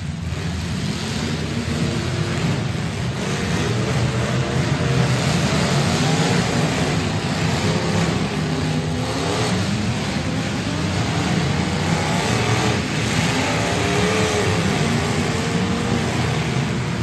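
Several demolition derby cars' engines running and revving together, their pitch rising and falling repeatedly.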